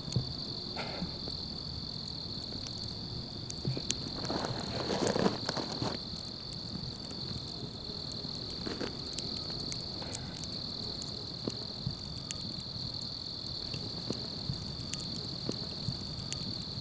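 Insects chirring steadily at a high pitch, with scattered faint clicks and a brief rustle about four to six seconds in.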